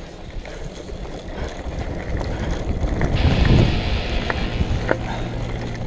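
Mountain bike speeding down a dirt trail, heard from a camera mounted on the bike: tyre rumble and wind on the microphone, with a few sharp rattles of the bike. The noise swells to its loudest a little past halfway, and a steady low hum joins in near the end.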